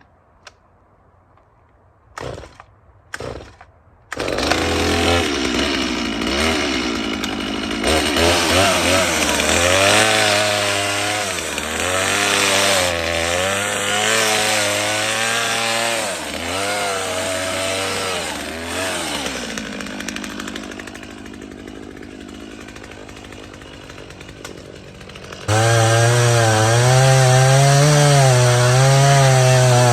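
New Stihl MS250 two-stroke chainsaw starting up about four seconds in, then running and cutting into a dead tree, its engine pitch rising and falling under load. It drops back for a few seconds, then runs louder again near the end.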